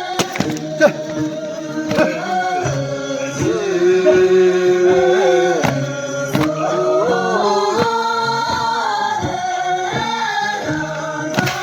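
Singing with music: long held notes that slide from one pitch to the next.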